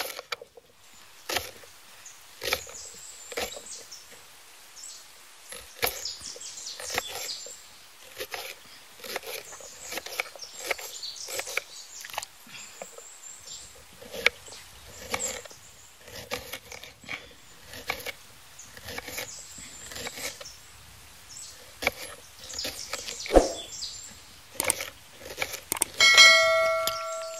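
Kitchen knife chopping raw banana on a bamboo cutting board: irregular knocks of the blade on the board, about one a second. Near the end a short bell chime rings out, the loudest sound, from a subscribe-button sound effect.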